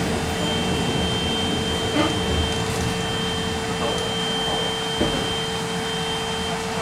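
Steady whine and hum inside a Škoda 14Tr01 trolleybus running slowly or standing, a constant tone from its electrical equipment, with two short knocks from the body about two and five seconds in.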